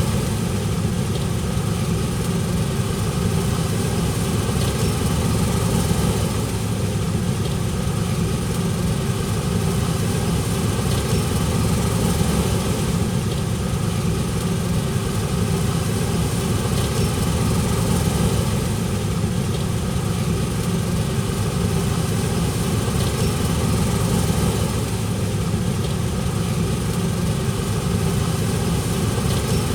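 Large diesel engine of harvest machinery running steadily, a constant low hum.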